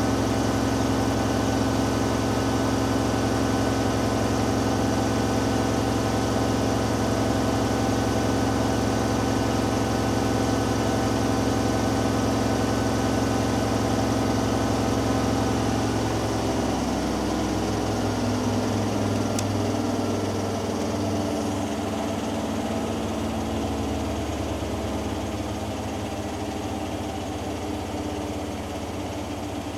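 Hoover Dynamic Next washing machine in its final spin, the drum turning fast with a steady hum. From just past halfway the drum begins to slow: the hum drops in pitch, takes on a pulsing beat and gets gradually quieter as the spin winds down.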